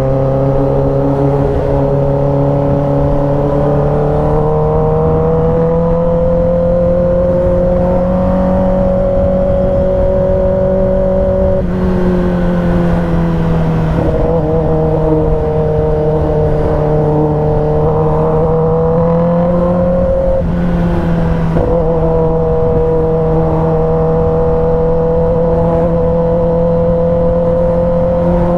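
Kawasaki ZX-10R's inline-four engine running under way, its pitch slowly rising and falling with the throttle, with brief breaks in the note about 12 and 20 seconds in.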